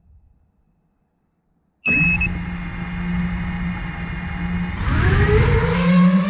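Near silence, then the brushless motors of an iFlight Nazgul Evoque F5 FPV quadcopter start abruptly with a steady hum and a brief high tone. About three seconds later the motors spin up with a rising, wavering whine as the quad throttles up to lift off.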